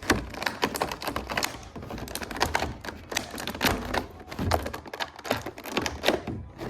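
Toy packaging being handled and opened by hand: a quick, irregular run of clicks, taps and knocks of plastic and cardboard.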